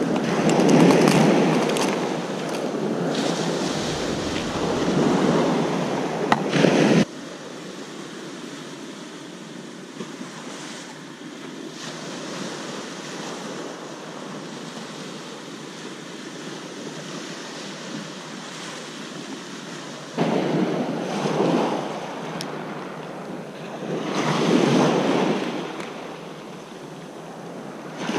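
Sea waves breaking and washing up a pebble beach, with wind buffeting the microphone. The sound drops suddenly to a quieter, steady wash about seven seconds in, and the louder surging of the surf comes back about twenty seconds in.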